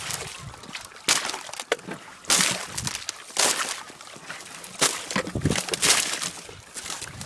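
Footsteps crunching through thin snow over ice and dry marsh grass, about one step a second, with rustling of dry cattail stalks between steps.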